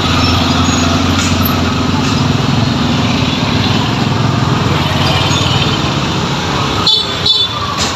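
A small engine running steadily with a low hum, with a couple of sharp clatters near the end.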